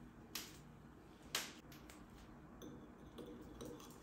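Two sharp knocks about a second apart, the second louder. Then a metal wire whisk begins lightly clinking against a glass bowl, with a faint ring.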